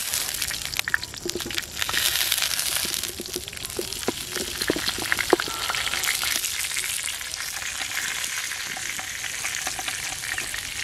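Hot cooking oil with cumin seeds sizzling loudly as boiled potato chunks are slid into the pan, with scattered sharp pops and ticks in the middle few seconds.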